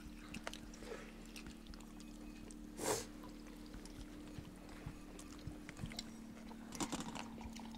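A person's short sniff about three seconds in, and a fainter one near the end, over a quiet room with a steady low hum and faint small clicks.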